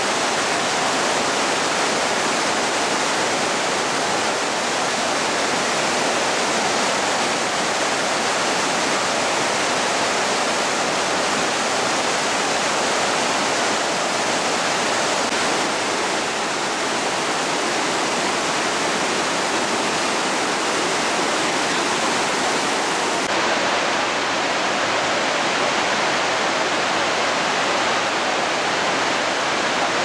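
The Rhine Falls' whitewater pouring over and around the rocks: a loud, steady rush of falling water. About three-quarters of the way through, the hiss turns slightly duller.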